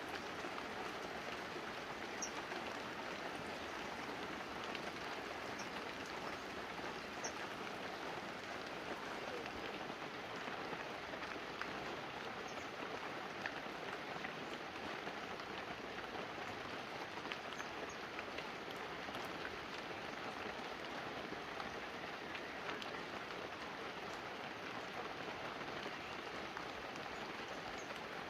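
Steady light rain falling on banana leaves and a roof, with scattered drops ticking through it.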